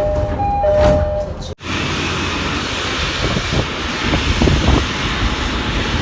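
An electronic two-tone chime alternating a higher and a lower note. After a sudden cut about a second and a half in, a steady, loud rushing rumble of machine noise takes over.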